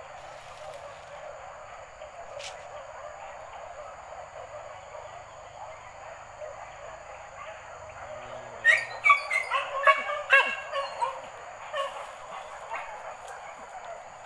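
Hunting dogs giving a quick run of about ten sharp yelping barks over two seconds, a little past the middle.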